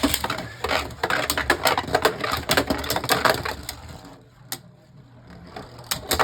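Two Beyblade Burst spinning tops clashing in a plastic stadium: a dense run of hard plastic clicks and rattles. The clashing stops about four seconds in, and one sharp click follows, as a top bursts apart.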